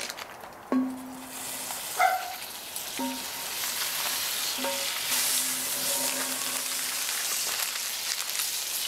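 Butter sizzling and spitting as pats are dropped into a scorching-hot 15-inch Lodge cast iron skillet; the sizzle starts about a second in and builds. Metal tongs clink against the pan four times, each clink ringing briefly.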